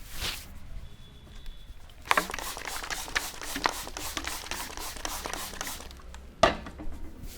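Hands working a head massage, with a dense run of quick rubbing and tapping sounds on hair and scalp from about two seconds in, and one sharp snap near the end.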